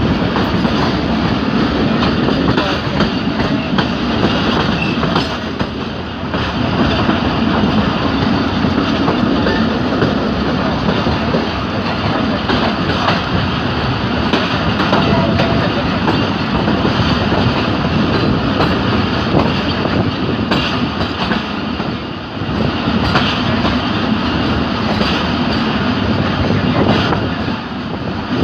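Passenger train coaches running at speed, heard from an open door of the moving train: a loud, steady rumble of wheels on rails, with scattered clicks as the wheels cross rail joints.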